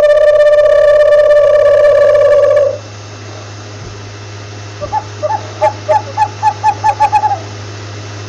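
Owl calling: a long, steady, loud pitched hoot that cuts off abruptly under three seconds in, then, after a pause, a quick run of short hoots at about five a second that speeds up. A steady low hum runs underneath.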